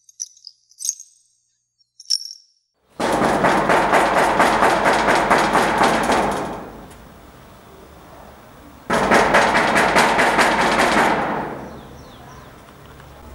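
Rapid banging on a corrugated sheet-metal gate in two bouts of a few seconds each, each starting suddenly and dying away slowly as the metal rattles.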